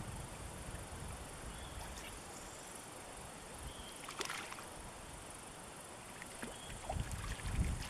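Water of a small brook running steadily, with a few small splashes and clicks and some low sloshing thumps near the end as the caught trout is handled in the water.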